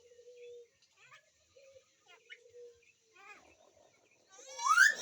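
Hill myna vocalising: soft, short, level low notes and faint clicks, then a loud rising whistle near the end.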